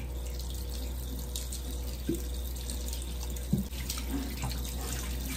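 Water running steadily from a wall tap into a sink and over hair being rinsed under it, with a couple of brief soft knocks.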